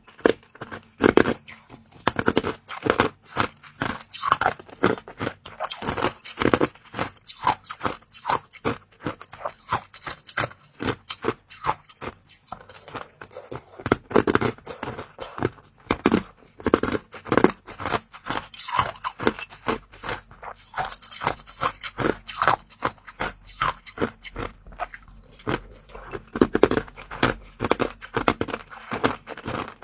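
Close-miked eating: a person biting and chewing something crunchy, with rapid crackling and louder crunches every second or so.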